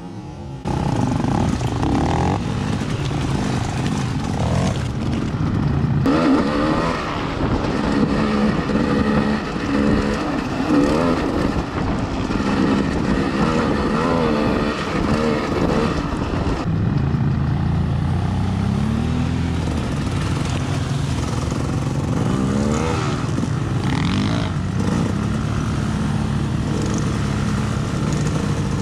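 Off-road vehicle engines running under riding, revving up and down again and again, starting about a second in.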